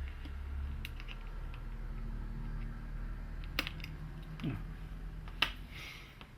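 A few small, sharp clicks and taps of handling as the battery is taken out of an opened car key fob's plastic case, two of them louder in the second half.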